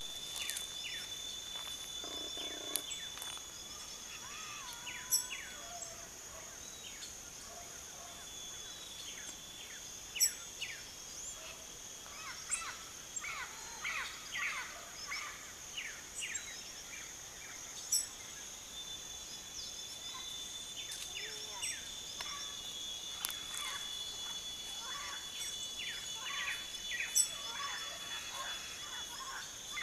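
Tropical forest ambience: a steady high insect drone with many short, falling chirps from birds scattered throughout, and a few sharp clicks that stand out as the loudest sounds.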